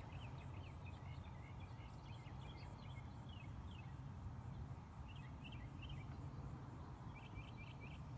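Birds chirping in quick runs of short high notes, coming in three clusters, over a low steady rumble.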